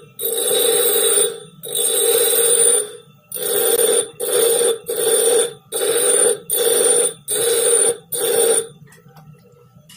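High-carbon Japanese plane blade pressed against a spinning bench-grinder wheel in about nine passes, each with a loud grinding screech, while the grinder's motor hums steadily between them. The passes are grinding a rounded (cambered) edge for a scrub plane. They get shorter and quicker after the first few and stop shortly before the end, leaving only the motor hum.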